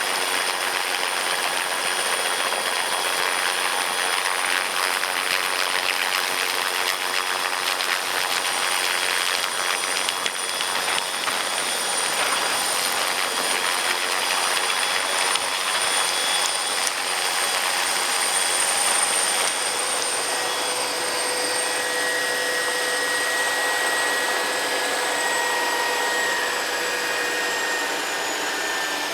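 Sikorsky S-58T helicopter running, its PT6T Twin-Pac turboshaft engines giving a steady high turbine whine over the rotor and gearbox noise. The highest whine slowly drops in pitch toward the end.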